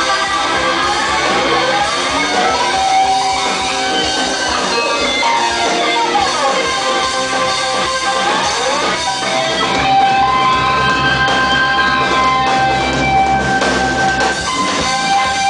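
Live band playing an instrumental passage on electric guitars, drums and keyboard, with swooping pitch glides in the first half and long held notes from about two-thirds of the way through.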